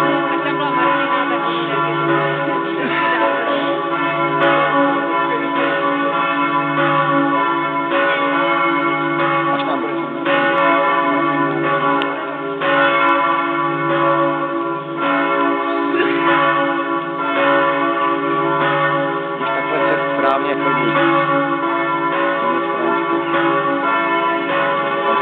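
Cathedral bells pealing: several bells of different pitch ringing together, with the deepest one sounding about once every second and a half.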